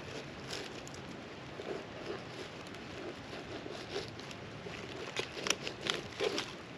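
Knife work filleting a fish: small scrapes, cuts and taps, coming thicker and louder near the end, over a steady background hiss.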